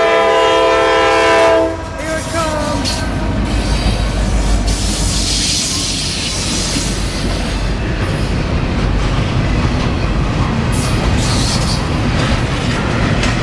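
Norfolk Southern diesel locomotive's multi-chime air horn sounding a steady chord that cuts off about two seconds in. It is followed by the loud, steady rumble and rattle of the locomotives and double-stack intermodal well cars passing close by, with wheels clicking over the rail joints near the end.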